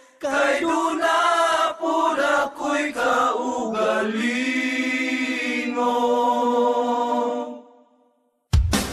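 Singing with no drums or bass under it, rising and falling and then settling into one long held note about four seconds in. After a brief gap of silence, a full rock band with drums comes in near the end.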